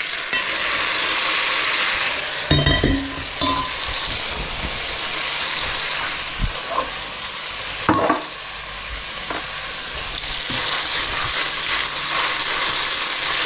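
Pasta and smoked bacon sizzling as they fry together in a pan, being stirred, with a few sharp knocks against the pan, the loudest about two and a half and eight seconds in.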